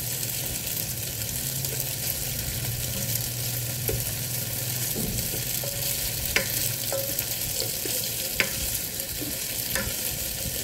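Pressed tofu cubes frying with a steady sizzle in the non-stick pot of a Hanabishi electric multi cooker, stirred and turned with a spatula that knocks against the pan a few times. The tofu was pressed and drained, so it fries without spattering.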